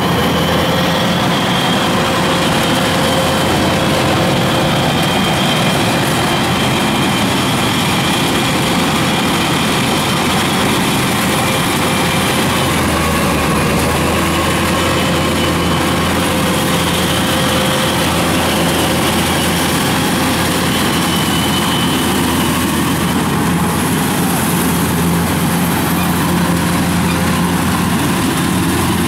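Kubota combine harvester running steadily while cutting rice, a dense continuous engine and machinery noise. Its low hum grows louder a little under halfway through.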